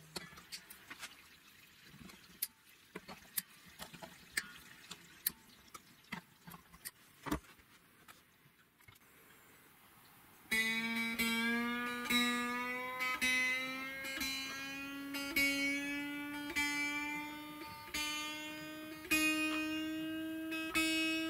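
Light clicks and handling noise as guitar strings are threaded and locked into new locking tuners on a Telecaster headstock. About ten seconds in, a guitar string is plucked again and again, about once a second, while its tuner is turned, its pitch rising slowly as the string is brought up to tension.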